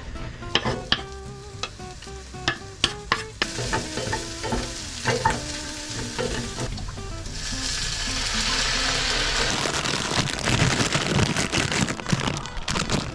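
Food frying in a pan. A few sharp knocks and clatters of utensils come first, then a steady sizzle starts about seven seconds in, with stirring and scraping in the pan near the end. Faint background music runs underneath.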